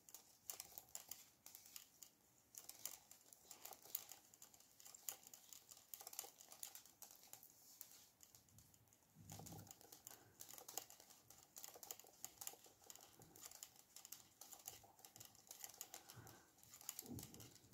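Faint, irregular clicking and ticking of circular knitting needles as stitches are knitted, with a couple of soft thumps from handling, one about halfway through and one near the end.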